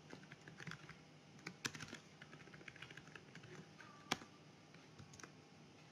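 Faint computer keyboard keystrokes and clicks as code is edited, with one sharper click about four seconds in.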